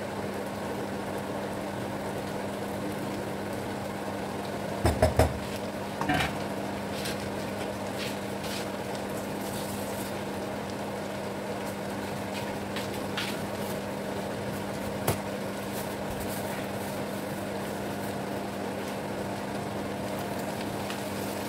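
Flat rice noodles (kway teow) heating in a nonstick frying pan with a faint steady sizzle over a low steady hum. A quick cluster of three knocks of utensils against the pan about five seconds in, another about a second later, and a sharp tick near fifteen seconds.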